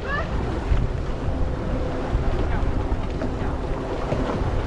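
Wind buffeting the microphone on an open boat deck, with waves washing against the hull and a faint steady hum underneath.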